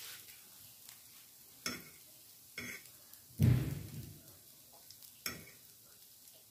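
A metal fork clinking and scraping in a skillet of fried rice: a few separate clicks, with one louder dull thump about halfway.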